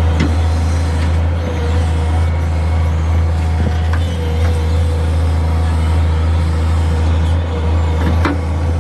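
Diesel engine of a Tata Hitachi EX130 excavator running steadily with a low hum and a wavering whine, with a few short knocks, one near the start, one around the middle and one near the end.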